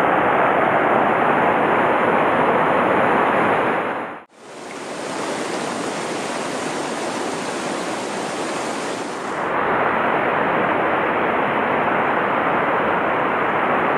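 Mountain stream rushing over rocks in riffles, a steady loud rush of water. About four seconds in it cuts out for a moment and comes back quieter and hissier, then returns to the fuller rush about halfway through.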